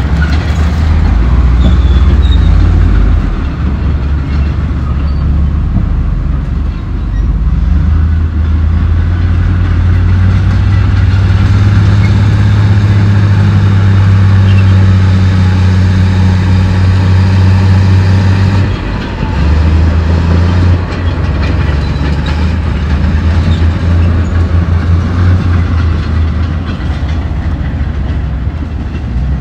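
Komatsu D68E crawler bulldozer's diesel engine working under load, with continuous clanking of its steel tracks. The deep engine note strengthens through the middle, breaks off abruptly a little past halfway, and picks up again.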